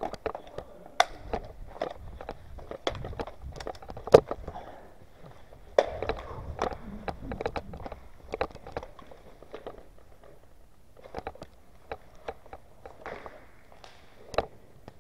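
Footsteps on a concrete floor: irregular sharp clicks and scuffs, with one louder knock about four seconds in.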